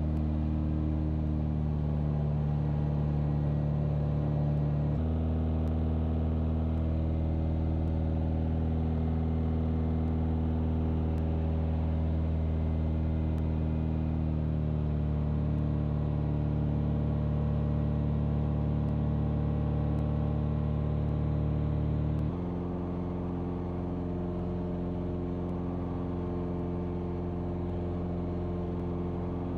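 Piston engine and propeller of a Rutan Long-EZ canard pusher droning steadily in cruise flight, heard from the cockpit. The pitch steps abruptly about five seconds in, and again about two-thirds of the way through, where the drone turns a little quieter.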